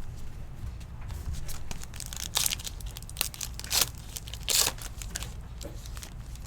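Foil trading-card pack wrapper crinkling and being torn open, in about four short rips between two and five seconds in.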